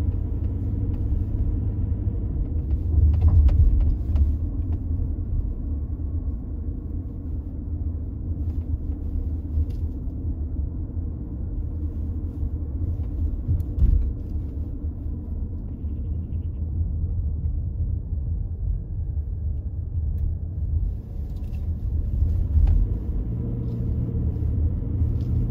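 Car driving uphill, heard from inside the cabin: a steady low rumble of engine and tyre noise, with a couple of brief knocks from the road.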